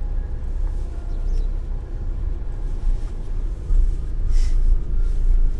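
Low, steady road and engine rumble inside the cabin of a Toyota Hiace camper van on the move, with a short hiss about four and a half seconds in.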